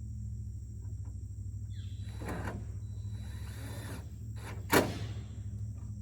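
A power drill runs briefly, driving a screw into a gutter cover, and a sharp knock follows about two seconds later. A steady low hum runs underneath.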